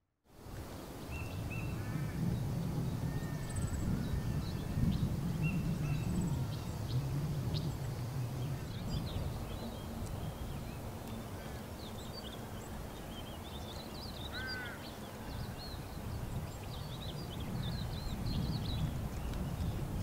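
Small birds chirping and twittering in many short notes over a constant low rumble, with one longer rising call about two-thirds of the way through.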